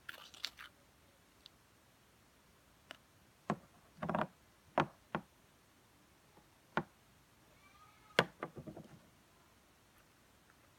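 Scattered light taps and clicks, about a dozen at uneven intervals, from handling and kneading a batch of homemade slime that has set a little firm.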